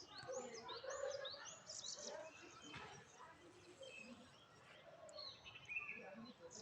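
Birds chirping: quick repeated high arched chirps, thickest in the first two seconds, over a low background murmur.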